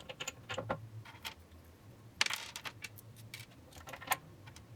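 Small metal clicks and clinks of longboard truck mounting screws being handled and pushed through the baseplate and deck, with one louder clack about two seconds in.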